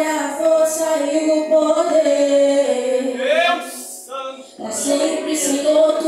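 Worship song sung by a group of male and female voices, with a short break in the singing about four seconds in.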